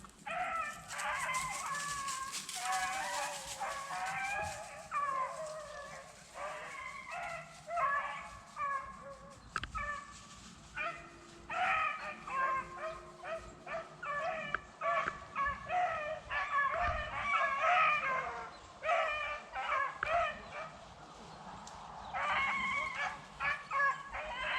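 A pack of beagles baying and yipping in short repeated calls, the sound of hounds running a rabbit on its scent. The calls come in runs, easing off twice before picking up again.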